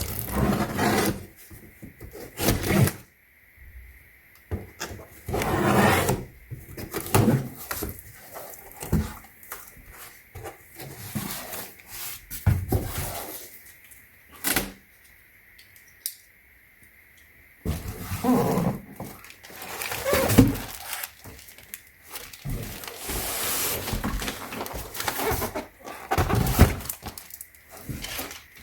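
Unboxing a hardshell suitcase set: packaging rustling and crinkling while it is handled, with scattered knocks and thuds, busiest in the second half.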